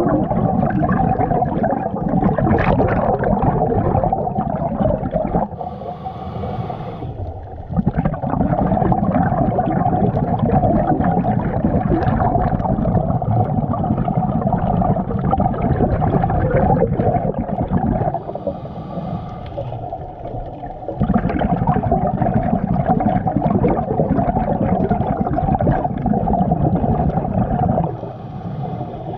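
A scuba diver breathing through a regulator underwater, close to the microphone: three long, loud exhalations of bubbling, each followed by a shorter, quieter hissing inhalation of two to three seconds.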